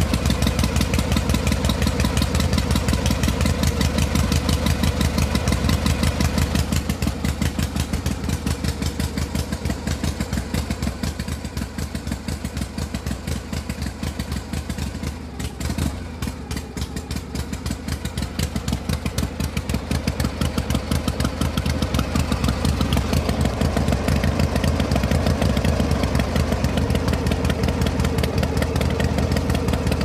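Motorcycle engine idling with an even, rapid beat, growing somewhat quieter for a stretch in the middle, with a brief knock about halfway through.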